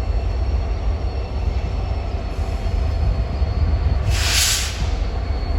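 Freight train backing slowly behind its EMD SD70ACe diesel locomotives: a steady low diesel rumble, with a short burst of hiss about four seconds in.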